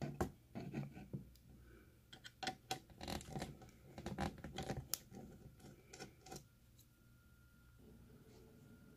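Small screwdriver working the screws out of a digital TV converter box's circuit board and metal chassis. Faint scraping and clicking of metal on metal, with small taps, that stop about six seconds in.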